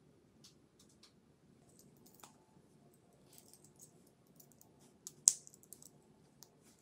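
Faint small clicks and light metal taps of jewelry being handled and a bracelet clasp being fastened at the wrist, with one sharper click about five seconds in.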